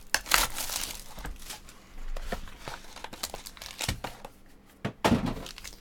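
Plastic shrink wrap crinkling and tearing as it is peeled off a cardboard trading-card box. A few sharp clicks and a louder crinkle come near the end as the box is opened and a foil pack is handled.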